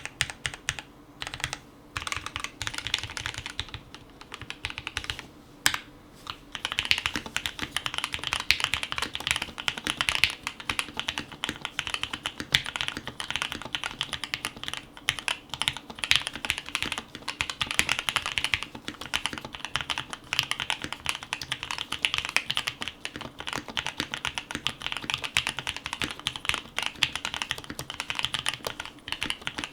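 Fast typing on a mechanical keyboard fitted with Gateron yellow linear switches, a dense clatter of keystrokes. The keystrokes are a little sparser and more spaced out for the first several seconds, then run on as a steady fast stream.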